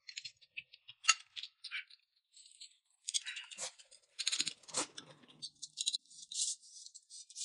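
Quiet eating sounds at a table: scattered crackles and clicks of lettuce leaves and a metal spoon clinking in a ceramic bowl of chili sauce, then noodles slurped near the end.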